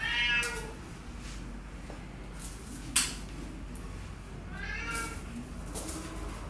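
Cat meowing twice, two arched, drawn-out calls, one at the start and one about five seconds in. A single sharp click sounds about three seconds in.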